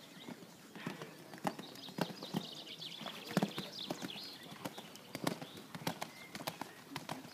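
A horse cantering on a sand arena: dull hoofbeats and thuds in the stride rhythm, about one every half second or so.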